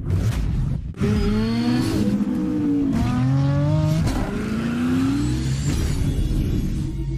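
Engine revving hard and accelerating through the gears: three rising pulls, the pitch dropping back at each shift before climbing again.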